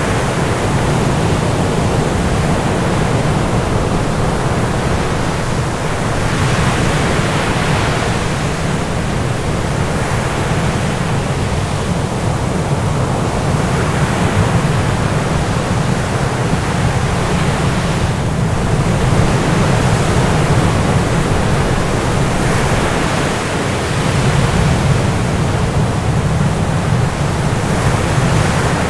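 Loud, steady rushing noise spread from low to high pitch, swelling slightly every five to seven seconds.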